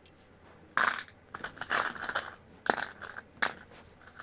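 Handling noise from small hardware parts being picked up and moved: irregular crinkling and rustling, with a couple of sharp clicks in the second half.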